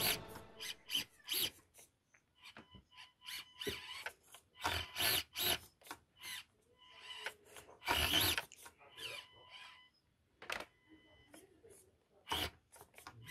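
Small electric motor and gearing of a micro RC crawler whirring in short, irregular spurts, with a thin steady whine now and then, as it is driven in stop-start moves.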